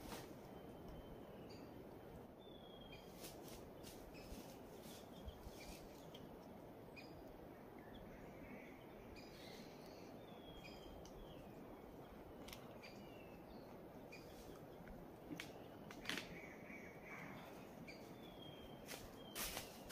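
Quiet forest ambience: a low steady hiss with short, downward-sliding bird chirps every few seconds, and a few faint clicks and rustles that grow louder near the end.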